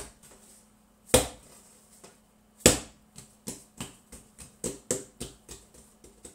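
Hands slapping and patting baguette dough on a floured worktop as it is pressed flat and folded: two sharp slaps, then a quick run of lighter pats, about three a second.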